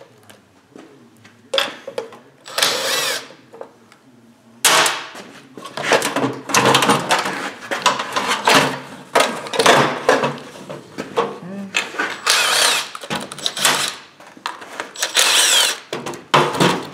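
Cordless impact driver spinning out the blower-housing bolts of a Briggs & Stratton 12 hp engine in several short runs, its motor whine rising and falling. In between there is irregular clatter of the metal engine and housing being handled.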